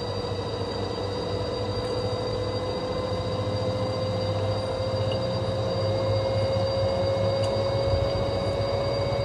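LG direct-drive washing machine spinning its drum up during the spin cycle: a motor whine that rises slowly and steadily in pitch over a low rumble, with a few fixed high-pitched tones alongside.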